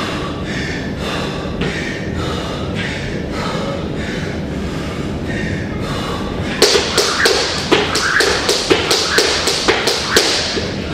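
A fast run of sharp knocks, about three a second, starts about two-thirds of the way in and stops just before the end.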